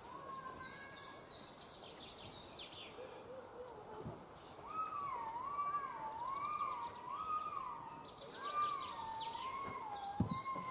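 Small birds chirping and twittering. From about halfway through, a high wavering whine rises and falls about once a second over the birdsong.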